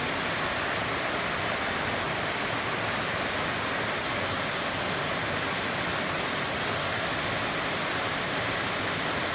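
Waterfall spilling over rock, a steady, even rush of falling water.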